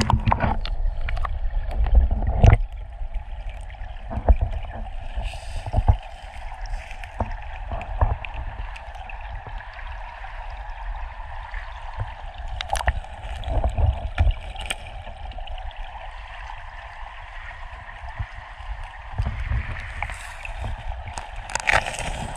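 Steady rush of river water running over rocks. Under it is a low, uneven rumble, and scattered clicks and knocks come through now and then.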